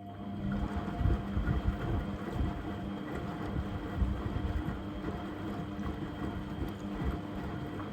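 Beko washing machine running empty: a low motor hum with irregular low thumps and rumble from the drum, and a few sharper knocks about one and four seconds in.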